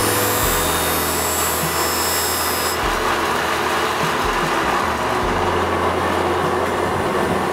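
A motor-driven knife-sharpening machine runs steadily while a steel knife blade is ground against it to put on the edge. The blade contact gives a high hiss that stops a little under three seconds in, and the machine runs on.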